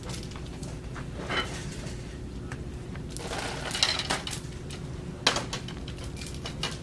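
A few scattered light knocks and clinks, like items being handled, over a steady low hum.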